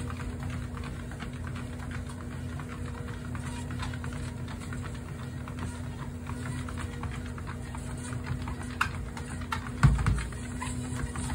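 Treadmill running with a steady motor hum, under a quick irregular patter of light clicks from a dog's paws and nails on the moving belt. A single louder thump comes about ten seconds in.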